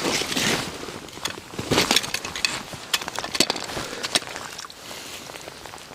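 Irregular clicks, taps and crackles, loudest near the start and again about two seconds in, thinning out towards the end.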